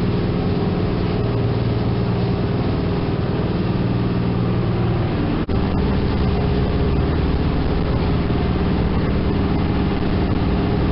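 A sightseeing cruise boat's engine running with a steady drone, over the rushing of its churning wake water. About halfway through the sound drops out for an instant, and the engine's tone is slightly changed afterwards.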